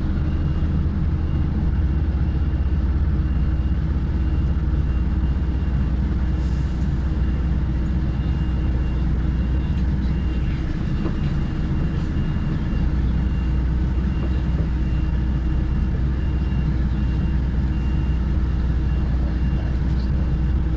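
HGV lorry's diesel engine running steadily at low revs with a deep drone while the truck is manoeuvred slowly. A faint, slightly broken high tone runs alongside it.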